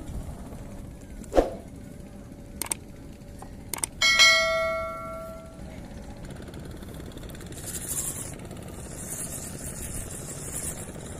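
A knock, a couple of sharp clicks, then a metal object rings with a bright clang that fades away over about a second and a half.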